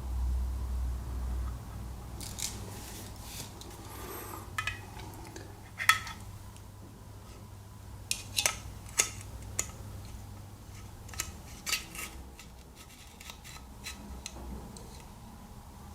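Sharp metal clicks and short scrapes of a Victorinox Swiss Army knife's can-opener tool being worked against an aluminium soda can, in scattered taps with a quick cluster a little past the middle.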